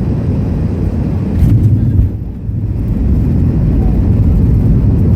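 Steady low rumble of an airliner heard from inside the cabin, with a brief swell about one and a half seconds in and a short dip just after.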